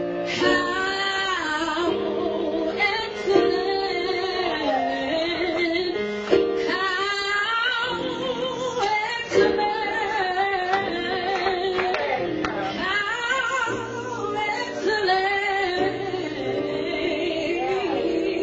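A woman singing a worship song with vibrato into a microphone, accompanied by held chords on an electronic keyboard.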